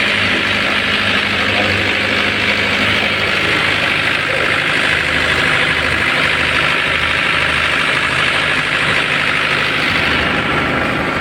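Heavy engine idling steadily, with a low uneven throb under a loud even hiss.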